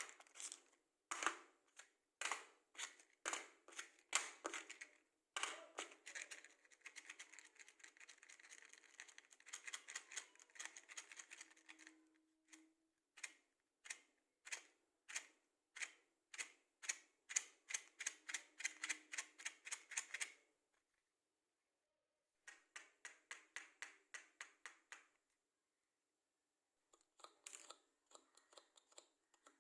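Matchsticks handled close to the microphone: quick runs of small sharp clicks and taps, with a denser rattling, rustling stretch, broken by two short pauses in the second half.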